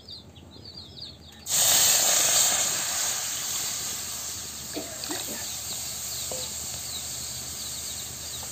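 Water poured into a hot, dry kadhai just used for roasting rice: a sudden loud hiss of steam starts about a second and a half in and slowly fades.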